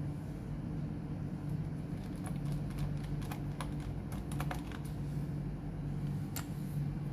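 A run of light, irregular clicks and taps, then one sharper click about six seconds in, over a steady low hum.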